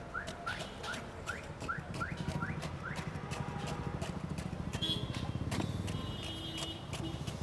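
Steel ice pick stabbing and chipping block ice in a metal ice box, with sharp regular strikes about two to three a second for the first three seconds. After that a low rumble of nearby street traffic is louder, with fewer strikes.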